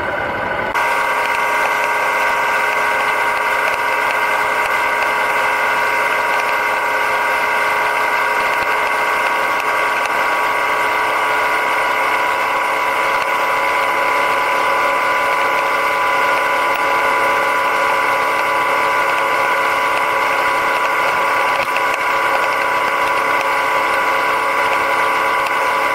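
Yamaha Ténéré 700's parallel-twin engine running at a steady cruising speed: a constant drone that holds one pitch without revving up or down.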